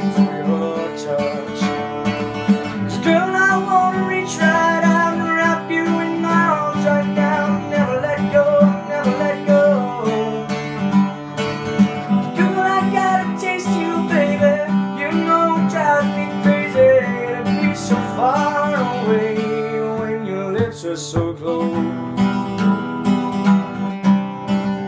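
Steel-string acoustic guitar strummed in a steady rhythm, with a man's voice singing a wavering melody over it for much of the time.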